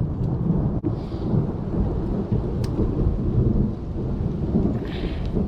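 Thunder rumbling continuously through a rainstorm, with rain falling around it and a few faint ticks of drops.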